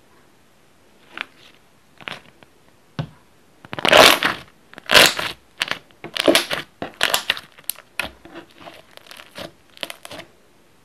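Hand squeezing and pressing a soft, glossy slime, making a string of short sticky squishes. The squishes are sparse at first, then loudest and densest from about four seconds in, and they stop about a second before the end.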